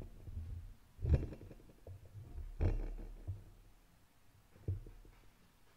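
Handling noise from a corded karaoke microphone: about four dull low thumps and rumbles as the mic is gripped and shifted on its stand.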